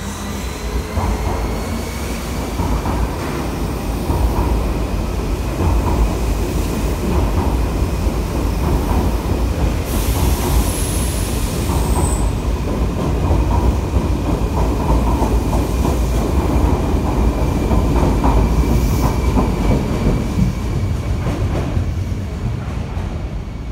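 Odakyu Romancecar LSE (7000 series) electric train moving off and away along an underground platform: a dense rumble of wheels and running gear that builds over the first few seconds and fades near the end, with a faint steady high whine. A brief high-pitched wheel squeal comes about ten seconds in.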